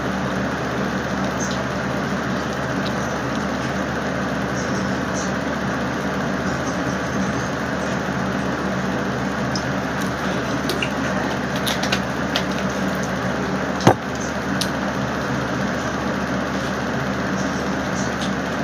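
A steady droning hum with an even hiss, like a running machine, with a few faint clicks and one sharp click about fourteen seconds in.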